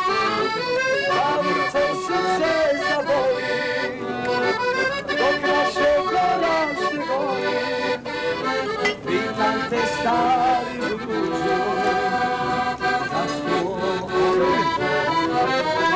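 Accordion playing a tune without a break: a moving melody over held chords.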